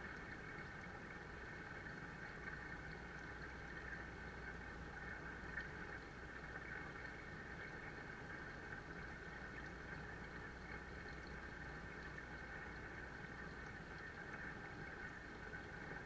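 Small waterfall pouring steadily into a koi pond, a constant splashing of falling water with a low hum beneath.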